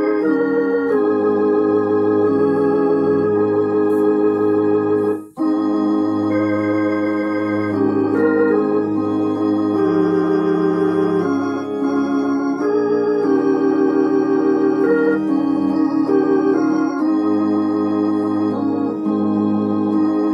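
Roland HP 704 digital piano played on an organ voice: a hymn in held, sustained chords that change every second or so, with a brief break about five seconds in.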